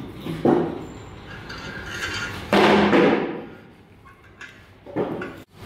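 Several knocks and clatters from hand carpentry work on timber formwork. The loudest is a brief clatter about two and a half seconds in, lasting about half a second.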